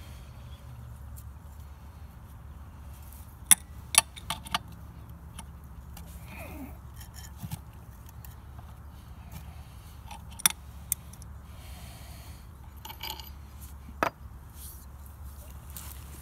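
Sharp metallic clicks and clinks of pump parts being handled and fitted onto the shaft during assembly of a Flint & Walling CJ101 pump: about eight in all, scattered, the loudest pair about three and a half seconds in. A steady low hum runs underneath.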